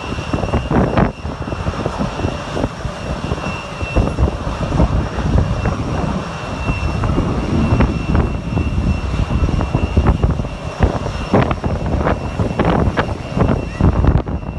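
Jet airliner engines running, a steady high whine over an uneven rumble.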